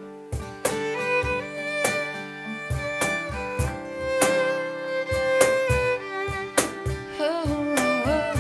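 Acoustic country music: a fiddle plays the melody in long held notes, bending and sliding between notes near the end, over a steady beat of percussive thumps.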